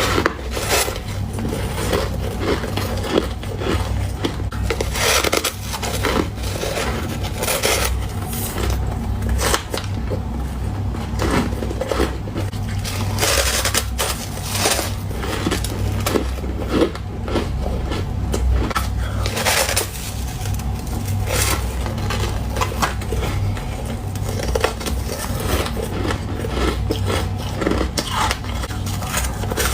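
Ice being bitten and chewed close to the microphone: many short crunches and scrapes in an irregular run, over a steady low hum.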